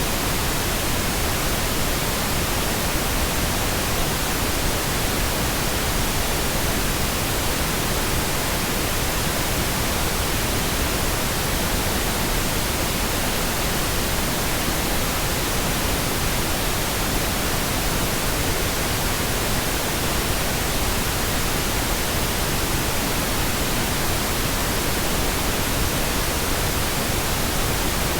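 Pink noise: a steady, unbroken hiss spread evenly across the whole range, with no change in level.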